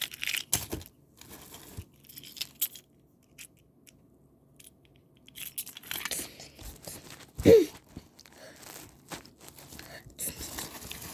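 Plastic packaging crinkling and crackling as a small plastic toy train is unpacked and handled, with scattered light clicks. There is a brief louder sound about seven and a half seconds in.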